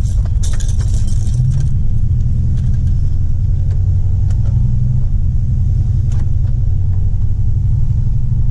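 1999 Dodge Ram 1500 pickup driving at low speed, with a steady low engine and road rumble.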